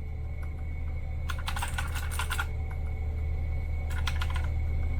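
Typing on a Magic-Refiner MK11 mechanical keyboard with clicky blue switches: quick runs of keystrokes, one a little over a second in and a shorter one near the end, over a steady low hum. The typing is quite loud compared to a regular keyboard.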